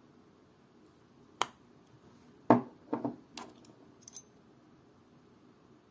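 Metal snap-on caseback of a vintage Omega wristwatch being opened and handled: a sharp click about a second and a half in, then a louder knock and a few quick clicks over the next second, with faint light metallic ticks a little later.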